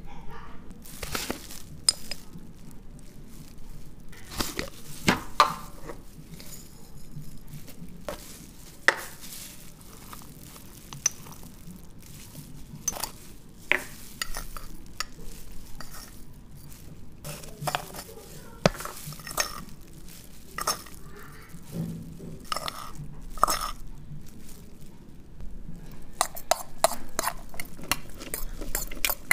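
Scattered clicks and knocks of containers and utensils against a plastic mixing bowl as eggs, spices and chopped onion are added. Near the end comes a quick run of clicks as chopped onion and chilli are tipped out of a steel bowl.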